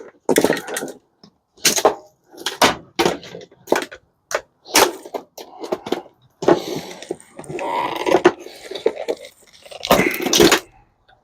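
Plastic and metal parts of a dishwasher being pried, unclipped and knocked apart by hand: a string of separate cracks and knocks, with longer stretches of scraping and rattling in the middle and near the end.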